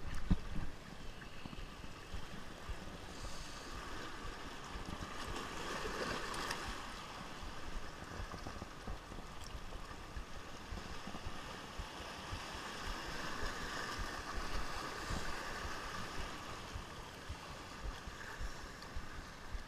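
Sea water washing and gurgling among shoreline rocks as the swell surges in and drains away, swelling about six seconds in and again around fourteen seconds.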